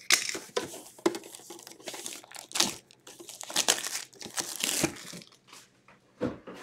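Plastic shrink wrap crinkling and tearing as it is pulled off a metal trading-card tin, in irregular crackling bursts.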